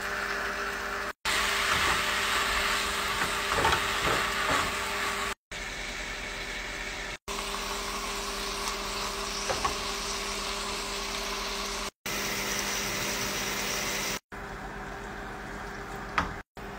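Sliced steak, onions and peppers sizzling in a frying pan while being stirred with a spatula, over a steady low hum. The sound comes in short clips separated by several brief silent cuts, with a sharp click near the end.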